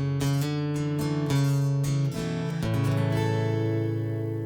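Acoustic guitar strumming the closing chords of a worship song; the strokes stop about three seconds in and the last chord is left to ring and fade.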